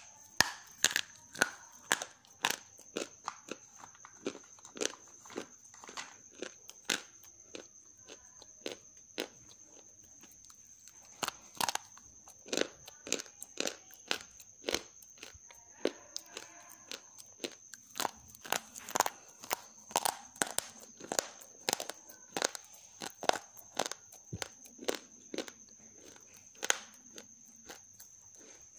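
Crisp bites and crunching of half-roasted grey clay (gachi) chunks, as sharp cracks coming several times a second at an irregular pace. There is a faint steady high whine underneath.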